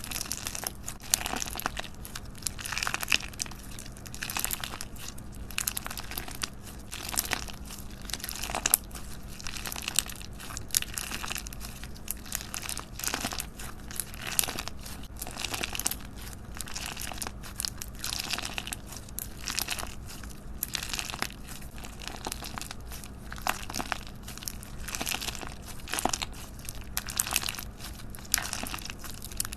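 Slime being squished and stretched by hand, giving a steady stream of irregular crackling and popping clicks.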